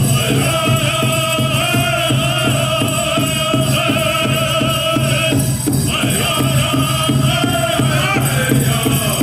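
Powwow drum group singing a dance song for the Prairie Chicken and Grass dancers: voices in unison over a steady, even drumbeat. The highest voices break off briefly just past halfway and then come back in.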